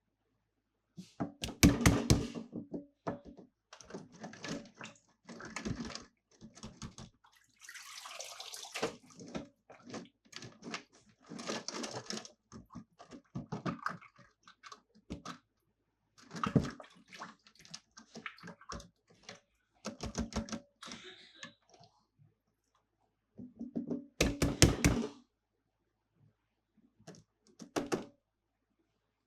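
Toy cars and their plastic packaging being handled: irregular bursts of clicks, taps and rattles with short pauses between.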